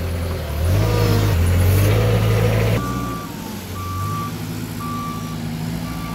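Truck-mounted forklift's engine running, louder and rising in pitch for the first few seconds, then easing off. From about halfway in, its warning beeper gives four evenly spaced beeps, about one a second.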